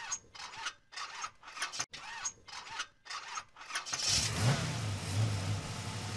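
Car engine starting: the starter cranks in short, uneven pulses for about four seconds, then the engine catches with a brief rise in revs and settles into a steady idle.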